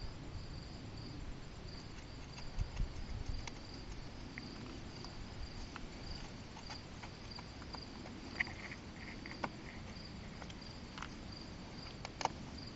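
Crickets chirping steadily in the background, with scattered small clicks and taps of metal engine parts being handled during motorcycle engine disassembly; the sharpest click comes near the end.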